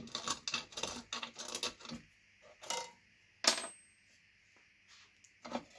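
Light metallic clicks and clinks at a bench drill press as a small hole in a G-scale track switch is countersunk: a quick irregular run of clicks for about two seconds, then a few single clicks, the sharpest about three and a half seconds in.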